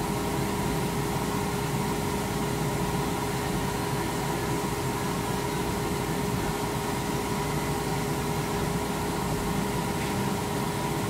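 Metal lathe running steadily while machining a rifle chamber: an even mechanical hum with two steady tones over a hiss.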